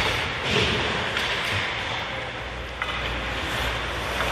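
Steady arena noise of an ice hockey game in play, with a sharp clack about three seconds in.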